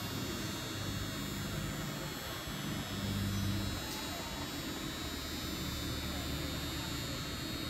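Steady background hum of an indoor arena with indistinct, distant voices; no single sound stands out.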